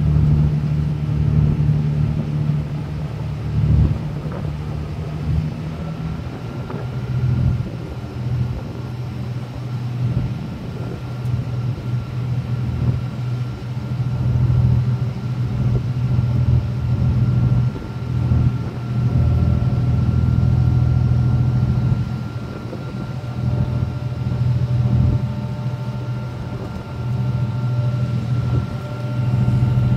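Ferry's engine running steadily, heard on board, as a low hum. A faint steady whine joins it a few seconds in.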